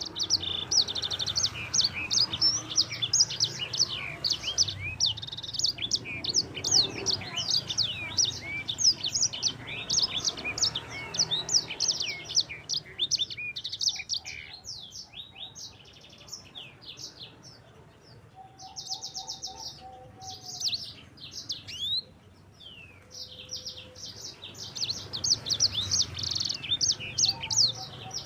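Sanger (yellow-fronted canary) singing a long, fast song of quick high chirps and downward-sweeping notes. It thins out briefly about halfway through, then picks up again with a short buzzy trill.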